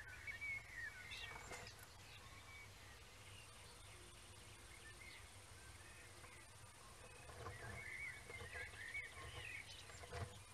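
Faint birdsong: wavering chirps and calls, in a short run at the start and another about three-quarters of the way through, over a low steady hum.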